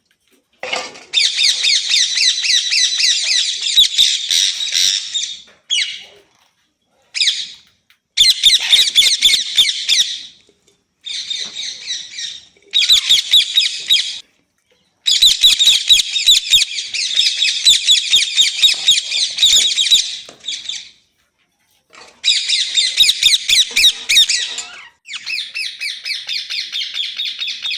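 A ringneck (rose-ringed) parakeet screeching in long runs of fast, shrill, repeated calls, broken by several short pauses.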